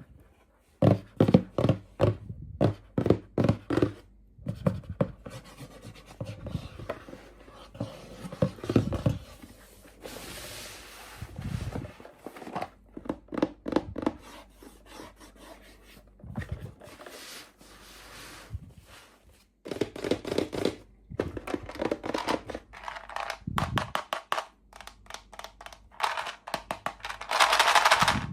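Hands unboxing miniature toys: a steady run of small taps, knocks and scratches of plastic and packaging being handled and opened, with a louder, longer rustling scrape near the end.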